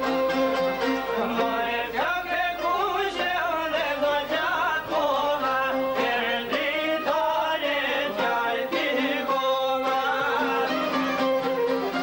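Live Albanian folk music on string instruments, including a long-necked lute, at full level. A steady held note sounds for about the first second and the last two seconds, and in between an ornamented, wavering melody bends up and down.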